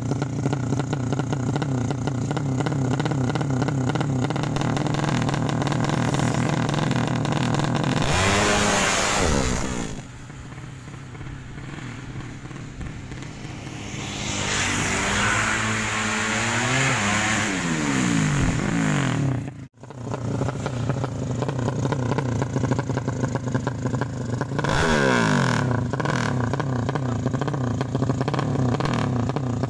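Tuned 200cc drag-racing motorcycle engine running steadily, its pitch swinging up and down with the throttle several times, with a quieter spell in the middle and a very brief cut-out about two-thirds through.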